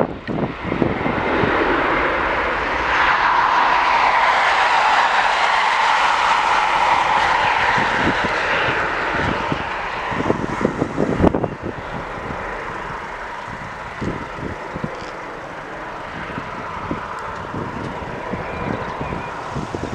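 Jet airliner engines passing close by, a steady whine over a rushing roar that swells about two seconds in and fades away in the second half. Wind buffets the microphone throughout.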